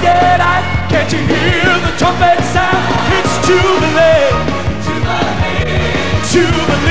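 Gospel choir and band performing an up-tempo song: voices singing with vibrato over a steady bass line and drums.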